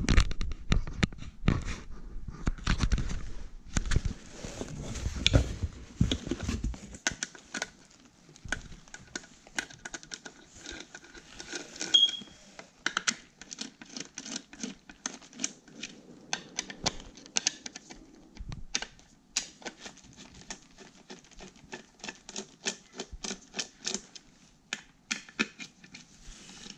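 Screwdriver undoing the cover screws of a bilge alarm unit's housing: a long run of irregular small clicks and ticks, with heavier knocks and bumps of handling in the first several seconds.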